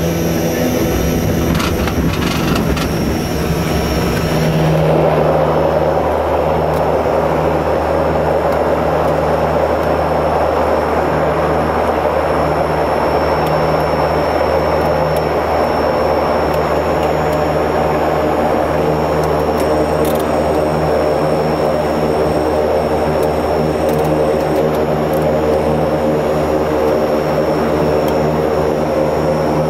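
The twin turboprop engines and propellers of an Antonov An-24B, heard inside the cockpit, running in a steady drone with a low propeller hum. The sound fills out and grows a little louder about five seconds in, then holds steady, as the aircraft flies toward the lit runway on approach.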